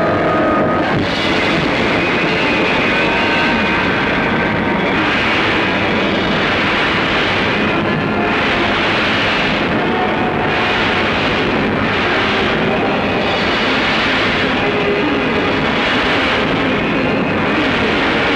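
Loud, dense rushing roar from a film soundtrack's sound effect, swelling and ebbing every second or two, with no music or voices over it.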